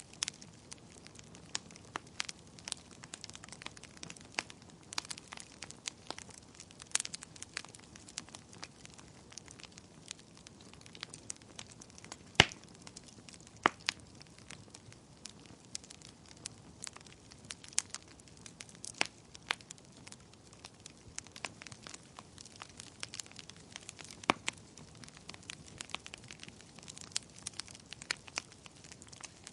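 Fire crackling: irregular sharp pops and snaps over a soft steady hiss, with one louder pop about twelve seconds in.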